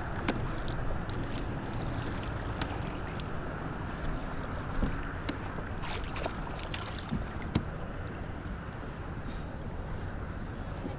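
Steady wind and water noise around a fishing kayak on open water, with a few short sharp clicks and knocks scattered through, clustered about six to seven seconds in.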